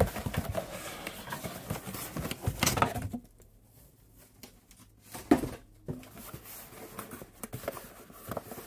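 Hands handling the box and packaging of a new carburetor: a run of rustles and clicks for about three seconds, then a pause, a single knock, and a few light taps.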